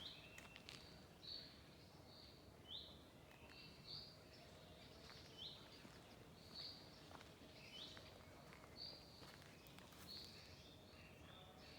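Faint songbird chirping: short high notes, some sweeping upward, repeating about once a second.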